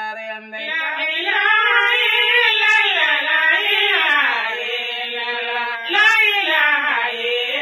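A voice singing a devotional Islamic chant in long held notes that waver up and down, with a short break for breath about six seconds in.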